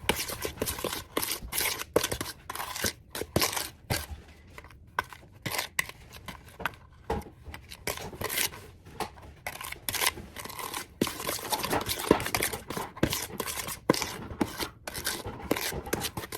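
Irregular scraping and scratching of a spoon being worked through a cookie batter of butter and sugar in a mixing bowl, in many short uneven strokes.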